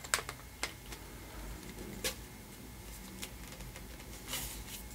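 A few light scattered clicks and taps of plastic cross-stitch frame tubes and elbow connectors being handled and fitted together, with a brief soft rustle near the end.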